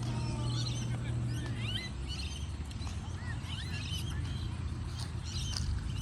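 A chorus of birds chirping and calling, many short rising and falling whistles overlapping, over a low rumble. A low steady hum stops about two seconds in.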